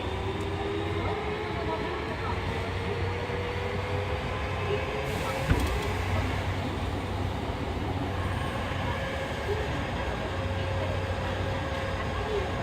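Running sound of a refurbished Fukuoka City Subway 2000-series train: the whine of its Hitachi hybrid SiC VVVF inverter and WN-drive traction motors over steady wheel and rail noise. The whine climbs slowly over the first half, then holds steady. There is a single knock about five and a half seconds in.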